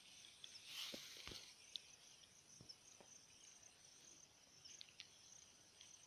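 Near silence: a faint, steady high chirring of insects over a rice field, with a brief rustle of dry rice straw about a second in and a few light crackles as it is stepped through.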